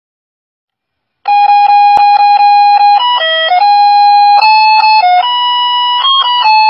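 Loud electronic chime tune from a handheld megaphone, an attention signal: a quick run of beeps on one note, about four a second, starting a little over a second in, then a short tune of held notes stepping up and down.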